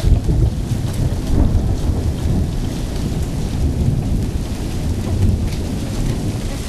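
Thunder rumbling over steady rain in a thunderstorm, the rumble loudest right at the start.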